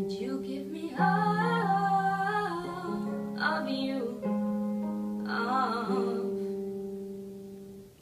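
Electronic keyboard playing sustained piano chords with a girl singing three held, wavering vocal phrases over them, the final chord fading out near the end as the song finishes.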